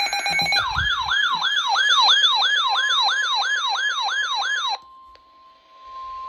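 Weather radio emergency alert tones: a brief buzzy burst of rapid data-like tones, then a siren-like tone sweeping up and down about three times a second for about four seconds. It cuts off abruptly into a single steady beep tone, like the NOAA Weather Radio alert tone.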